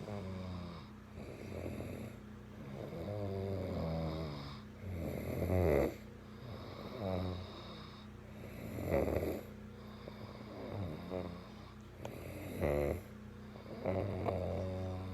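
Snoring during sleep: a long run of snores, one every few seconds, some much louder than the rest.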